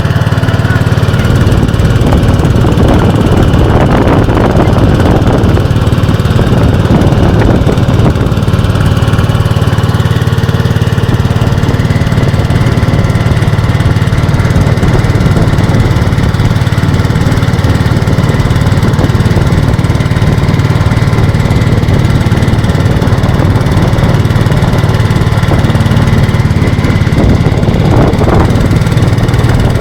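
A vehicle's engine running steadily and loudly at close range, without a break.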